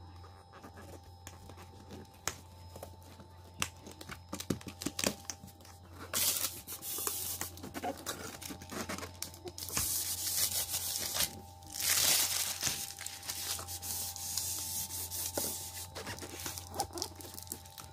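Hands rubbing and pressing down a self-adhesive vinyl floor tile to bond it: skin sliding over the textured tile surface in hissy rubbing strokes, strongest about six, ten and twelve seconds in, with small taps between.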